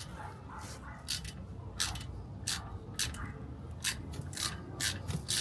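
Ratchet wrench worked in short strokes on the front differential's fill plug, a brief rasping burst of clicks about every half second as the plug is cracked loose.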